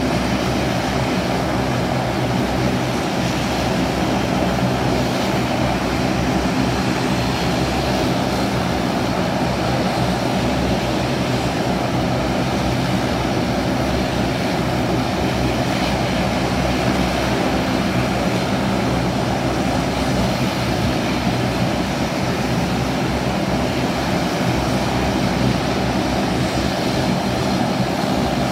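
A De Havilland Dash 8-400 turboprop's engines running steadily, a constant drone with a whine of propellers and turbines and no change in power.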